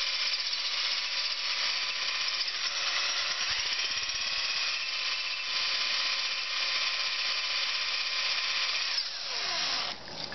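Cordless drill boring into the head of a seized brake-disc bolt, the steel bit grinding with a steady high whine. About nine seconds in, the drill spins down with a falling pitch and stops.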